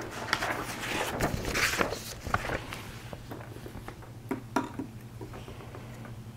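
Light handling noise: a soft rustle, then a few small clicks and taps of 3D-printed plastic clock parts being picked up and fitted onto the frame.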